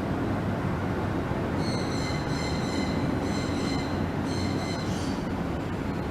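Steady low rumble with a high-pitched squeal, as of metal wheels or brakes, coming in about a second and a half in. The squeal holds one pitch, breaks twice and stops about five seconds in.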